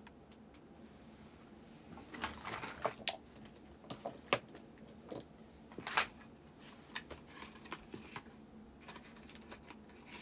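Faint scattered taps and clicks, about a dozen and unevenly spaced, with a patch of rustling about two seconds in: fingers tapping and handling the recording device close to the microphone.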